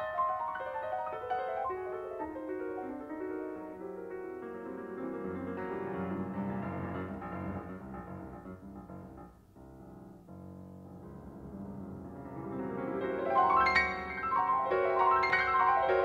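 Solo piano background music: a run of notes stepping down in pitch, a short lull about ten seconds in, then notes climbing and growing louder near the end.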